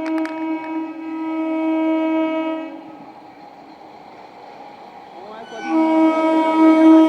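Train horn sounding two long, steady blasts on one note: the first stops about three seconds in, and after a short gap a second, louder blast starts near the end.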